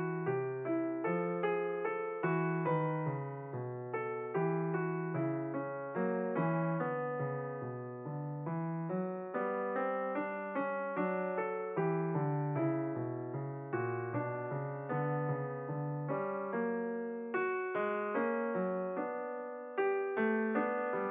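Background piano music, a steady stream of struck notes over a low bass line.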